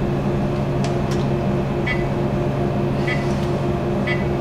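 Steady electrical hum of fluoroscopy X-ray equipment running: a low drone with a faintly pulsing higher tone, and a few short faint high blips.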